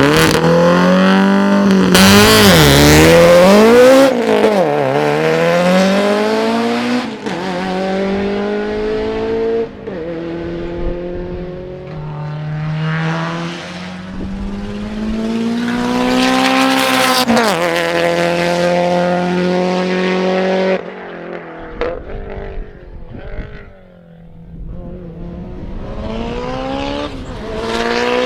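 Mitsubishi Lancer Evolution VI GSR's turbocharged four-cylinder engine being driven hard. Its pitch climbs under acceleration and drops back at each gear change, several times over. About three quarters of the way through it goes quieter and uneven, then builds again.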